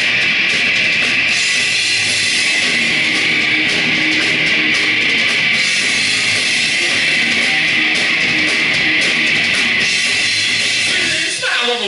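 Rock band playing live, loud and dense. Near the end there is a downward slide in pitch as the music changes.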